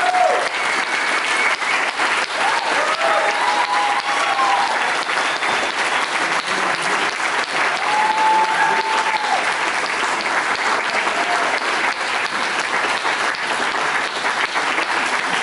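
Audience applauding steadily, with a few short calls and whoops over the clapping.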